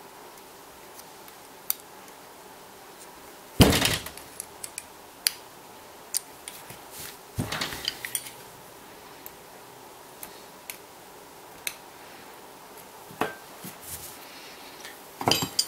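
Hand tools and the metal parts of a Biax electric scraper being handled during disassembly: scattered clicks and clinks, with a heavier knock about three and a half seconds in and another about seven seconds in.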